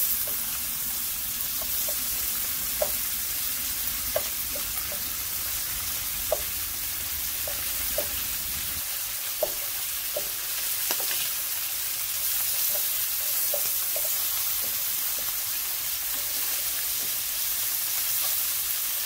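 Sausage slices sizzling steadily in melted butter in a nonstick frying pan, with scattered small clicks as a wooden spoon turns them over.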